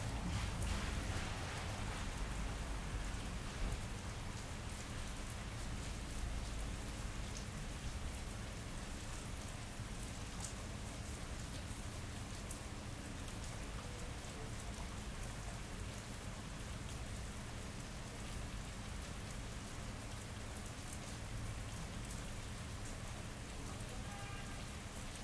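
Steady rain falling on wet city pavement, recorded binaurally, with a low rumble of distant thunder in the first few seconds and a steady low hum underneath.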